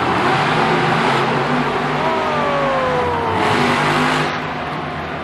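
Monster truck engines, supercharged V8s, revving hard on a dirt arena track. A strong engine note falls in pitch about two seconds in as a truck lets off.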